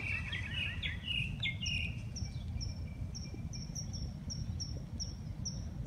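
Bird calling: a few short sliding notes, then a steady string of short high chirps about two a second, over a low background rumble.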